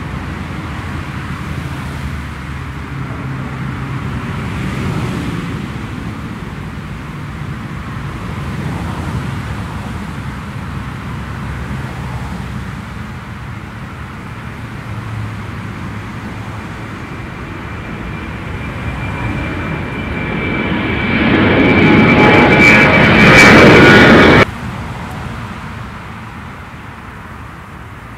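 Twin-engine jet airliner taking off: a steady distant engine rumble that swells to a loud climb-out overhead with a high steady fan whine, then cuts off abruptly about 24 seconds in, leaving a quieter rumble.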